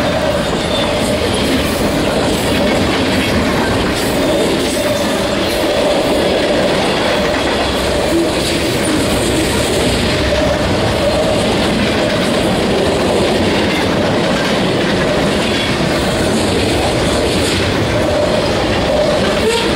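Freight train cars rolling past close by: a steady, loud rumble of steel wheels on rail with a faint thin squeal and a few brief knocks.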